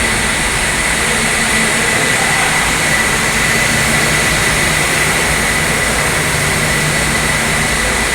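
Steady loud machine running noise with a constant high-pitched whine and a low hum underneath.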